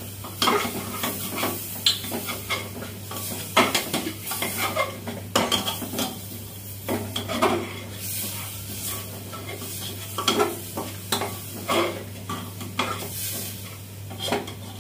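A metal spoon scraping and clinking against an aluminium pot in irregular strokes as onion-tomato masala is stirred and fried, with a steady sizzle underneath.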